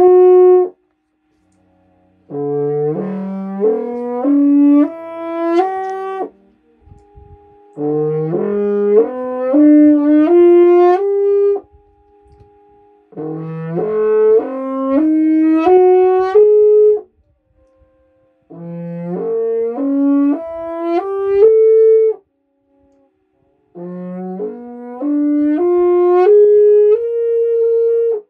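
French horn practice: a phrase ends just as the sound begins, then five climbing runs of notes follow. Each run starts low and steps upward note by note for about four seconds, ending on a higher note, with a short pause between runs.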